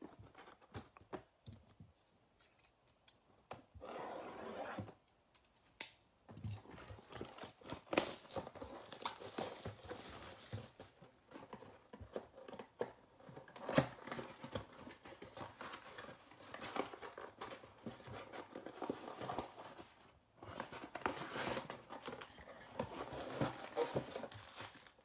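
Shrink wrap being torn and crinkled off a Panini Prizm baseball card mega box and its cardboard flaps pulled open. The rustling is irregular, with a few sharp snaps, in stretches broken by short pauses.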